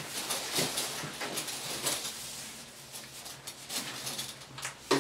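Blue 25mm MDPE plastic water pipe being fed along by hand, its plastic rubbing and scraping in irregular scuffs as it slides toward and into a plastic duct.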